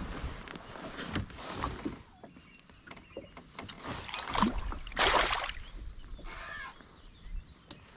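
Water splashing and sloshing in uneven strokes, the loudest splash about five seconds in.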